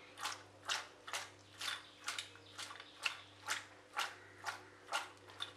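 Raw sliced jackfruit seeds, onion and coconut pieces sliding and tumbling inside a stainless steel pot as it is shaken back and forth by its handles to mix them. About a dozen short, faint swishes at roughly two a second.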